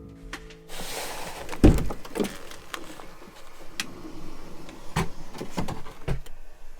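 A van's door opens with a sudden rush of outside noise, followed by several thumps and clunks, the loudest about a second after the door opens.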